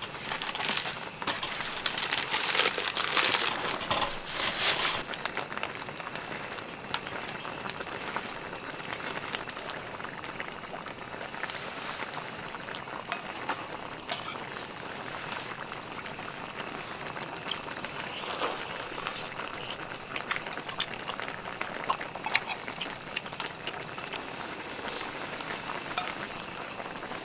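Food sizzling and bubbling in a hot pan. It starts abruptly and is loudest for the first five seconds, then settles into a steady sizzle with scattered small pops.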